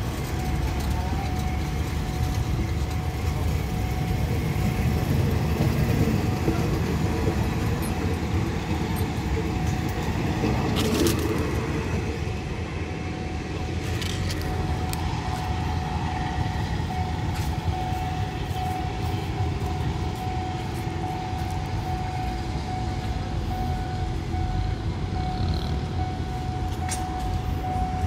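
Passenger train running: a steady rumbling noise with a continuous hum beneath it and a few sharp clicks.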